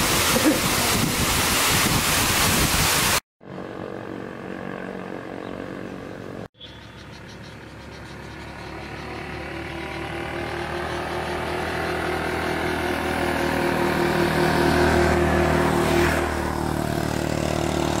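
A waterfall's steady rush of falling water for about three seconds, then, after a quieter pause, a motor vehicle's engine. The engine grows steadily louder as it approaches, peaks, and begins to fade near the end.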